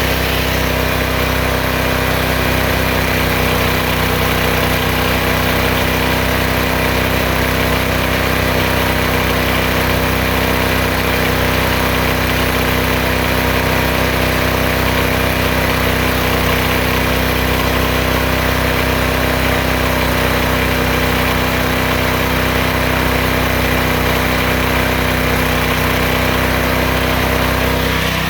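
The 14 hp, 420cc single-cylinder engine of a homemade bandsaw sawmill running steadily, driving the band blade.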